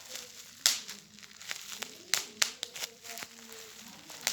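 Plastic antistress popping toy being popped by hand: a handful of sharp, irregular pops with light plastic crinkling between them.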